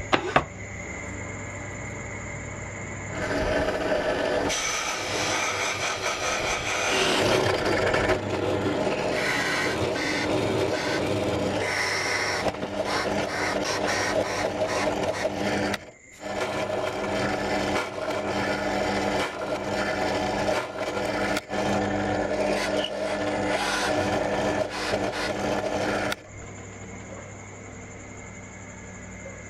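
Power drill boring shallow holes into an MDF panel: two long spells of rough, grinding cutting, with a brief pause about halfway through. A steady machine hum is heard before the cutting starts and after it stops.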